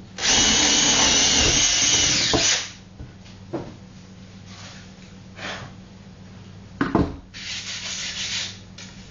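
Power drill with a 10mm bit boring a hole through plywood for about two and a half seconds, then stopping. A sharp knock comes about seven seconds in, followed by a shorter, quieter burst of the same rushing noise.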